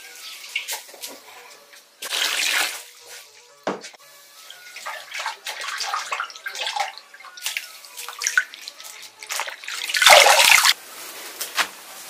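Water splashing and pouring as lettuce and strawberries are washed by hand in a bowl, coming in several short bursts with the loudest near the end.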